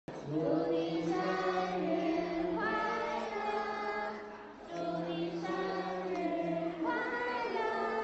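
A group of voices singing in long held notes, in two phrases with a short break about halfway through.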